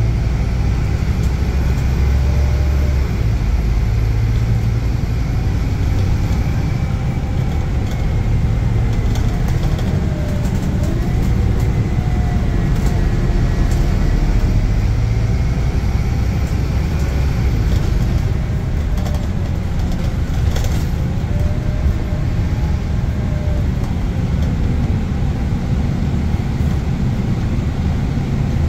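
Scania K280UB single-deck bus with a ZF automatic gearbox on the move: steady engine and road noise, with a faint whine that rises and falls in pitch.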